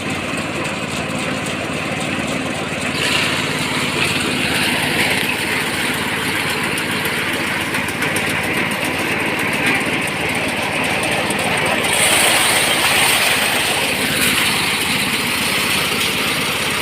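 Small engine-driven rice thresher running steadily, its sound growing harsher about three seconds in and again around twelve seconds.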